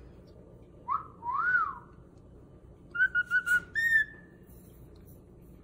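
Cockatiel whistling: a short rising note and an arched rise-and-fall note about a second in, then a quick run of four short notes followed by a longer, higher note between three and four seconds in.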